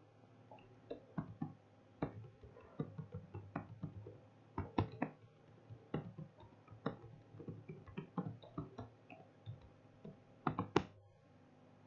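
Computer keyboard typing: a run of irregular key clicks, the loudest cluster near the end.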